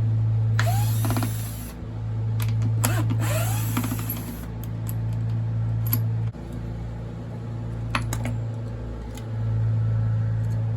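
A steady low mechanical hum that breaks off and restarts a few times. Two hissing bursts of about a second each come near the start, with a few light clicks.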